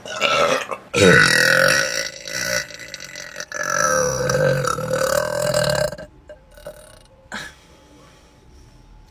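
A woman burping loudly: a short burp, then two long, drawn-out burps, the second lasting over two seconds.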